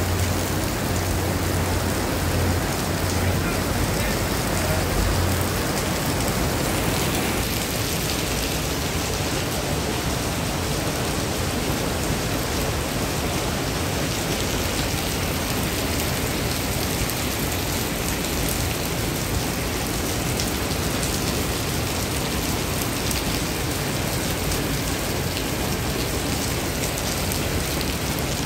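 Heavy rain falling on wet paving: a steady, even hiss.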